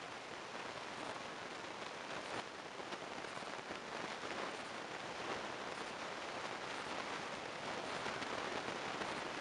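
Steady, even hiss-like outdoor ambience at a soccer field, with faint scattered ticks and no clear single event.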